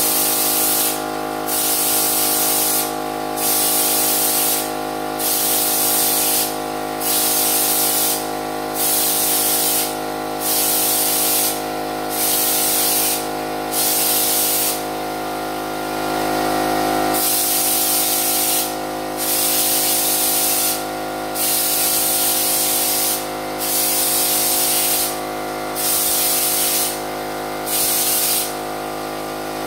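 Spray gun spraying bedliner: a loud hiss that comes in strokes of about a second and a half, with short breaks about every two seconds, over a steady motor hum. About halfway through there is a longer break of about two seconds in the spraying.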